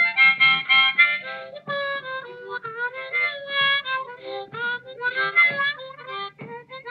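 Blues harmonica playing an instrumental break, with bent, wavering notes, over guitar accompaniment keeping a steady beat.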